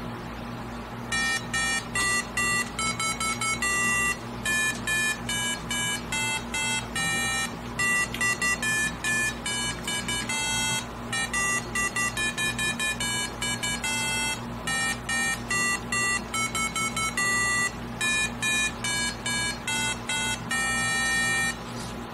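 Touchless dog hand wash timer's electronic buzzer playing a beeping tune of short notes at changing pitches while it counts out the hand-washing time. The tune starts about a second in and stops near the end, about twenty seconds later.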